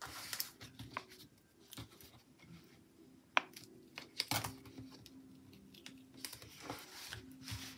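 Scissors snipping a paper sticker and fingers pressing and smoothing it onto a planner page: scattered soft clicks and taps with light paper rustling, one sharper click near the middle.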